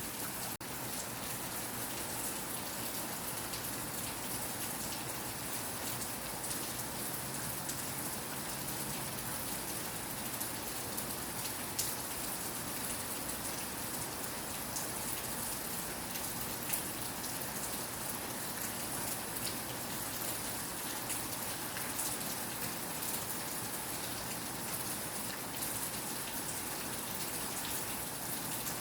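Steady rain falling, an even hiss dotted with the ticks of single drops hitting a surface, with a momentary dropout about half a second in.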